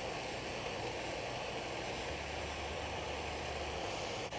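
Portasol HP820 butane blowtorch flame hissing steadily while it heats a solder-ring Yorkshire fitting on 3/4-inch copper pipe, bringing the joint up to the heat that melts the solder.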